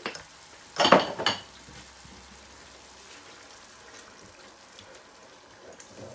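Tomato and garlic purée sizzling gently in oil in an aluminium pot, with a short clatter of a few knocks against the cookware about a second in. A wooden spoon then stirs the sauce.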